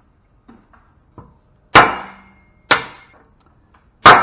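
Three hard hammer blows about a second apart, each with a short metallic ring, striking small copper-bearing circuit-board components to get at the copper. A few light taps come before them.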